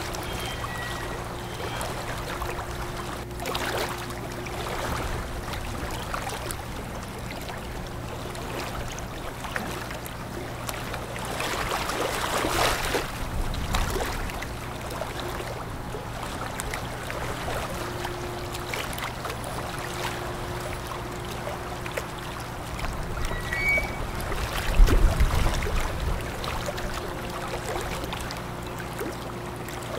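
Steady low engine drone of the fisheries surveillance ship KN-290 under way, over the rushing wash of its bow wave on the river. The noise swells louder about twelve seconds in and again near the end.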